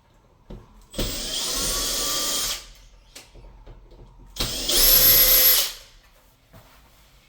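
Cordless drill-driver running in two bursts of about a second and a half each, the second louder, undoing the screws that hold the handles on a sliding-door bolt lock.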